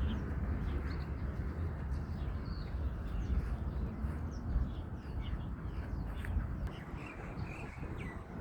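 Outdoor ambience of low wind rumble on the microphone, with scattered short bird chirps.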